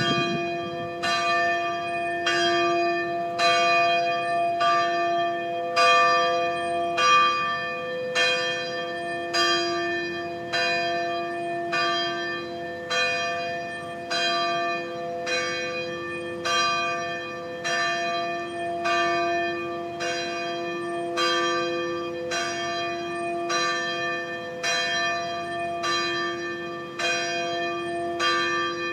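Bells ringing in a continuous merry peal, strikes following each other evenly about one and a half times a second, each ringing on into the next over a lasting hum.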